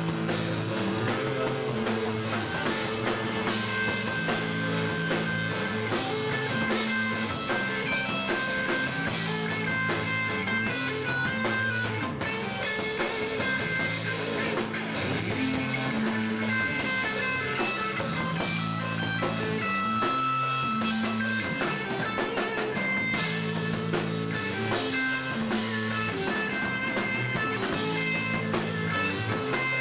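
Live rock band playing: electric guitar and a full drum kit, continuous and loud.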